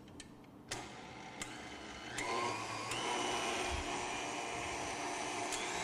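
KitchenAid Artisan stand mixer with a wire whisk switched on to beat egg yolks. The motor starts under a second in, and its whine steps up in pitch around two seconds and again around three seconds in as the speed is turned up, then runs steadily.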